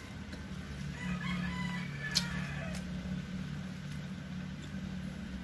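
A faint, drawn-out animal call lasting about two seconds, starting about a second in, over a steady low hum, with one sharp click partway through.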